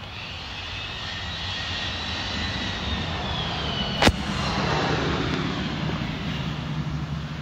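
A rushing engine noise that swells louder, with a high whine gliding slowly downward, and one sharp click about four seconds in.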